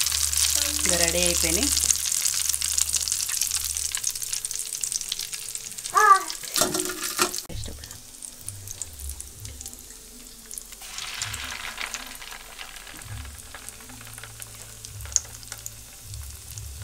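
Hot oil sizzling loudly as batter-coated poornam boorelu deep-fry in a steel kadai, the sizzle fading after about four seconds. A few sharp knocks come about six to seven seconds in, and a fainter sizzle returns in the second half.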